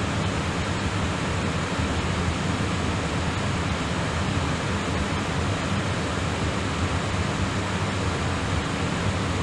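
Steady rush of engine and airflow noise inside a Boeing airliner in flight, a deep, even drone with a hiss above it.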